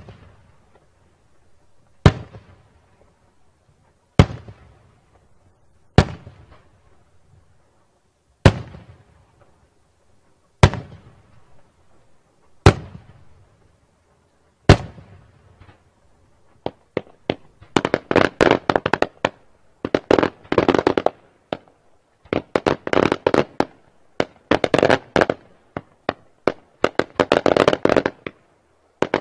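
Daytime aerial firework shells exploding overhead, first as single loud bangs about every two seconds. From about halfway through they give way to dense, rapid volleys of many small bangs in clusters.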